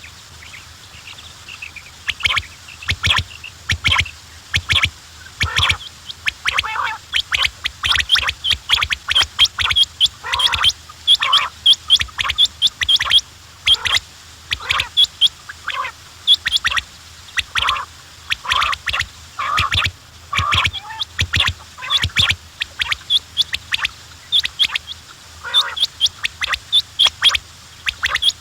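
Quails calling: a rapid, dense run of short, high chirping calls that starts about two seconds in and keeps going.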